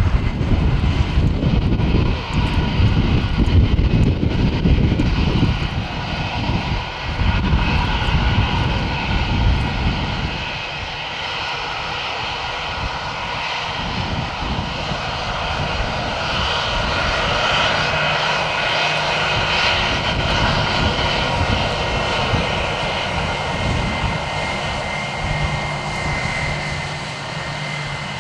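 Jet airliner engines running with a steady whine that grows stronger past the middle, while gusty gale-force wind buffets the microphone through roughly the first ten seconds.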